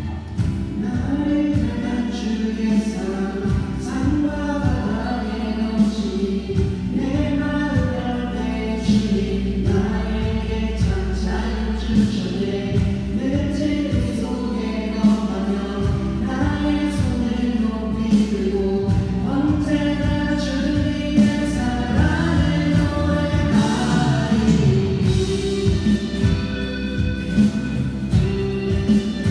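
Voices singing a Christian praise song with instrumental accompaniment: sung melody lines over a sustained low bass and keyboard backing.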